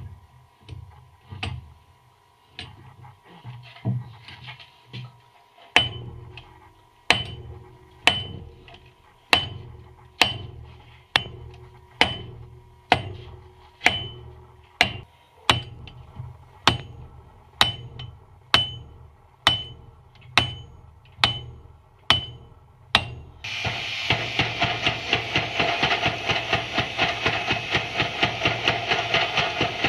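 Hand hammer striking red-hot steel on an anvil with a ringing clang: lighter, irregular blows at first, then steady blows about one a second. About 23 seconds in, the hammering stops and a loud, steady rushing noise from the forge fire takes over as the steel is reheated.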